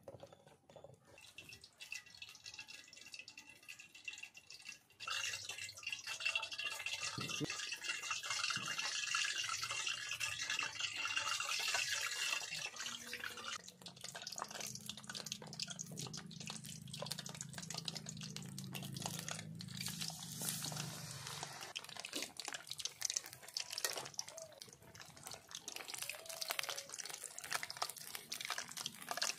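Battered bananas deep-frying in a pan of hot oil: a steady sizzle full of small crackling pops, which starts about five seconds in. Before that, faint wet squelching of a hand working thick batter in a steel bowl.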